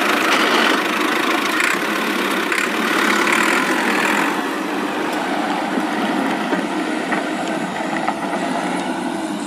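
Small electric gear motor whirring steadily as it drives a miniature sliding gate along its rod and toothed rack.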